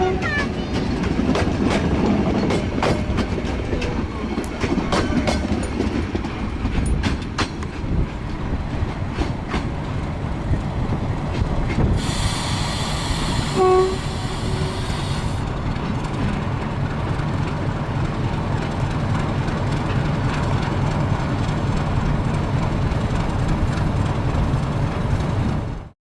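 Metre-gauge train running along the track, its wheels clacking over rail joints, with a steady rumble. About halfway through, two short horn toots sound, and the sound cuts off abruptly near the end.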